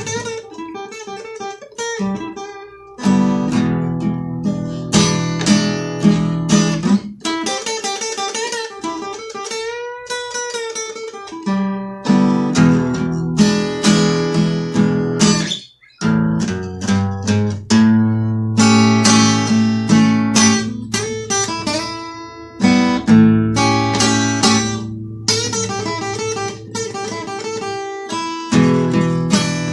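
Solo acoustic blues guitar played instrumentally, picked notes mixed with strummed chords, with a long bent note about ten seconds in and a brief break about sixteen seconds in.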